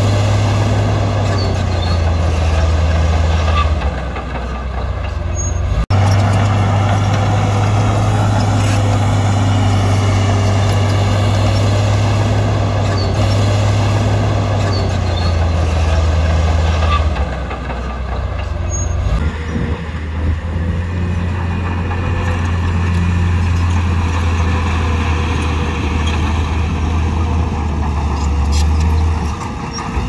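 Heavy diesel construction machinery running with a steady low engine drone. It eases off twice and picks up again, with a sudden break about six seconds in.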